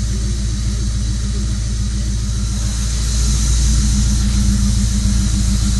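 Mazda 323 SP20's four-cylinder engine running steadily with a high hiss over its low hum, the annoying sound the owner puts down to the filter. It grows a little louder about three seconds in.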